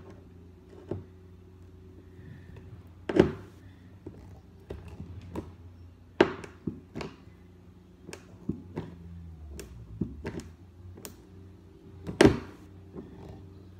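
Hand rivet gun being pumped slowly to set a blind rivet through a padeye into a kayak hull, each squeeze of the handles a sharp click, a few seconds apart, with the loudest at about three seconds and near the end. A faint steady hum runs underneath.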